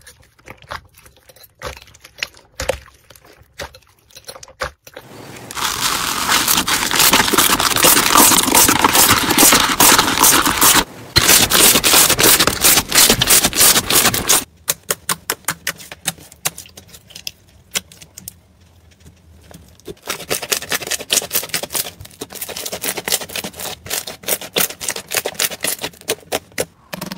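Slime being squeezed, poked and stretched by hand, making small wet clicks and pops. A long stretch of loud, dense crackling runs through the middle, and denser clicking returns near the end.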